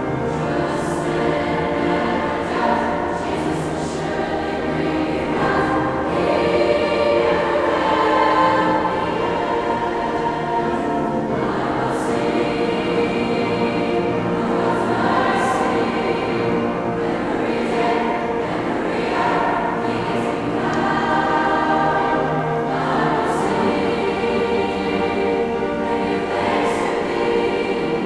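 Mixed choir of teenage boys' and girls' voices singing together in harmony, holding long chords that change every second or two, with the crisp hiss of sung consonants now and then.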